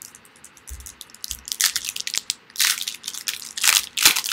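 Foil wrapper of a Topps Chrome baseball card pack crinkling and crunching in a run of irregular crackles as hands work it, loudest in the second half.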